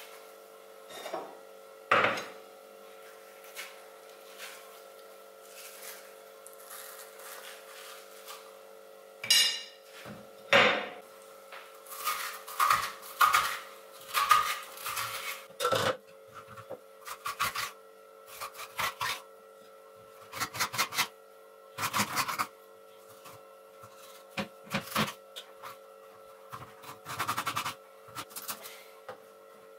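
A metal spoon scraping seeds and pulp out of a halved Hokkaido pumpkin, with irregular scrapes and sharp knocks and taps against the pumpkin shell and a plastic cutting board. A faint steady hum runs underneath.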